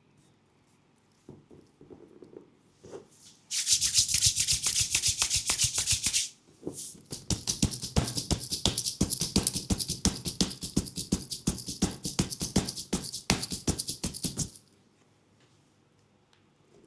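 Rapid, even percussive strikes on a leg during a massage, in two runs: about three seconds, a brief pause, then about eight seconds more.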